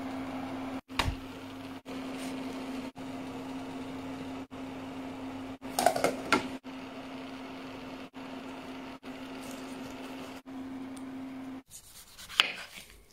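A steady low hum broken by brief dropouts about once a second, with a thump about a second in. About six seconds in, a saucepan's glass lid clatters as it is handled. Near the end the hum stops and a single sharp tap is heard.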